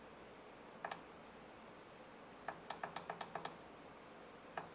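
Clicks from a FrSky Taranis X9D Plus radio transmitter's buttons as a mixer value is stepped up. Two quick clicks come about a second in, then a fast run of about seven clicks, roughly seven a second, from about two and a half seconds in.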